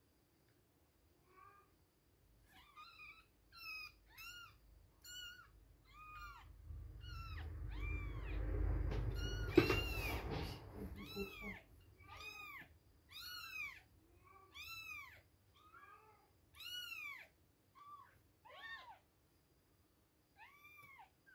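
Two-week-old kittens mewing over and over: short, high, arching cries coming about one or two a second. In the middle a low rumbling rustle swells up and fades, with a sharp knock near its loudest point.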